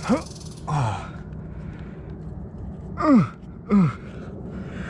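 A rock climber's short effortful grunts and exhales while pulling through moves on lead: four falling-pitch grunts, two right at the start and two more about three seconds in.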